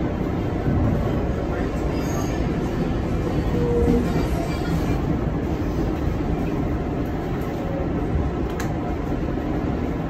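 Interior running noise of a New York City 4 train subway car moving along the track, heard from inside the car: a steady low rumble.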